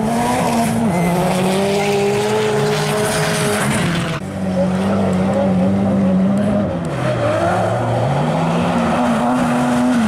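Opel Astra rally car's engine running hard on an ice track, its pitch shifting with throttle and gear changes. There is a brief drop about four seconds in, and the pitch falls and climbs back about seven to eight seconds in.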